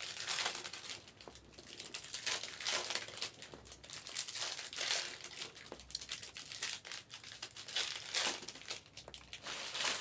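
Trading card packs being handled and opened: short, irregular bursts of crinkling and tearing from the foil wrappers, mixed with the rustle of cards being stacked.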